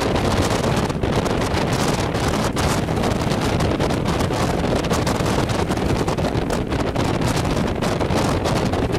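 Strong storm wind buffeting the microphone: a steady, loud rush of wind noise with many short ticks running through it.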